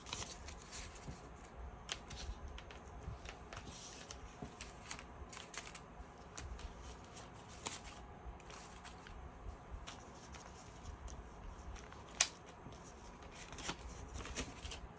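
Paper dollar bills rustling as a stack of banknotes is handled and slid into the envelope pages of a ring binder, with scattered light clicks and one sharper click about twelve seconds in.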